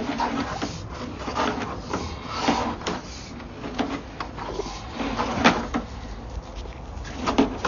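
Pipe inspection camera and its push cable being fed along a corrugated drain pipe: irregular knocking, clicking and rattling that comes in bunches every second or so.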